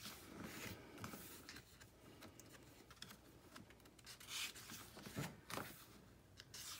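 Paper pages of a traveler's notebook insert being turned by hand: several faint, soft rustles and swishes of paper.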